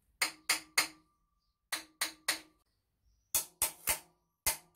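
Hammer tapping on a Honda CB750's chrome exhaust header pipe: sharp metallic strikes in groups of three, each with a brief ring from the pipe, ten in all. The pipe is being knocked loose where old exhaust assembly paste has set it fast in the exhaust port.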